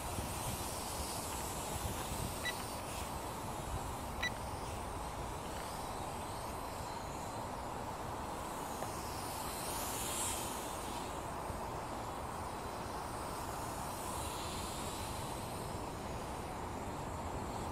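Syma toy quadcopter's small motors and propellers buzzing in flight, a faint whine that rises and falls as it moves, under a steady hiss. Two short high beeps come about two and four seconds in.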